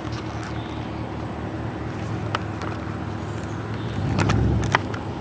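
Motor vehicle running, a steady low engine and road hum. About four seconds in there is a louder low rumble with a couple of sharp clicks.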